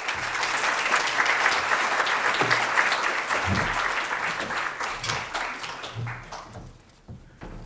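An audience clapping. The applause starts at once, holds steady for several seconds and dies away near the end.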